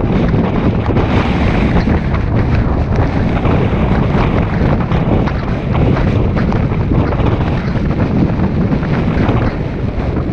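Strong wind buffeting a camera microphone in a steady low rumble, with small irregular knocks through it; it eases a little near the end.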